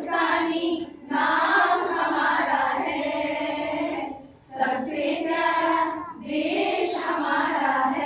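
A group of children and women singing together in unison, long held phrases broken by short pauses for breath about one, four and a half, and six seconds in.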